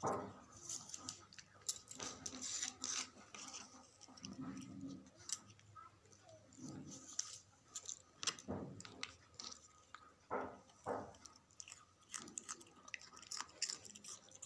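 Puppy chewing food: an irregular run of short crunches and clicks.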